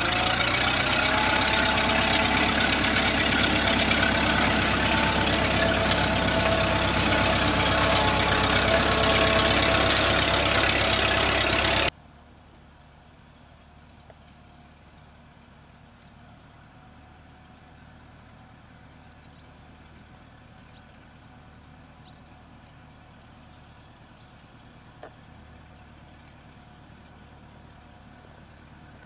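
Vintage Fordson Major tractor engine running steadily as it pulls a binder through standing grain. Its note rises slightly about a second in. About halfway through, the sound cuts off abruptly and only a much fainter steady running remains.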